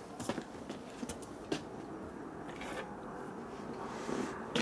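Quiet workshop background with a few faint light taps and handling sounds, scattered through the stretch.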